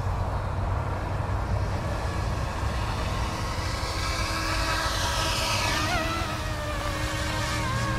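YX Black Hawk UH-60 scale RC helicopter running, its electric motor and rotors making a steady whine over a low hum. The pitch sweeps, drops and wavers about five to six seconds in as the helicopter manoeuvres.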